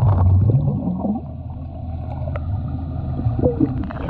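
Muffled underwater sound of a swimmer blowing bubbles out of her nose and mouth: a low, dull rumble and bubbling, with a brief muffled hum that rises in pitch about a second in.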